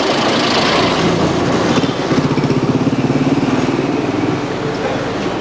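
Motorcycle engine running with a rapid, even firing beat, clearest in the middle.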